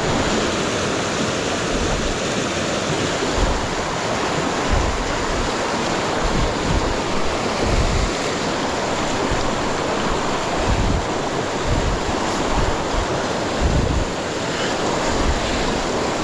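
A creek in spring flood rushing and churning over logs and rocks: a steady, loud wash of fast water, with low gusts of wind buffeting the microphone every second or two.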